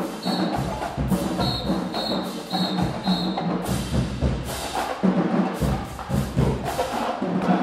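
Marching band drumline playing a driving percussion cadence of sharp snare and tenor hits over bass drum. Short high-pitched tones sound in time with the beat during the first half.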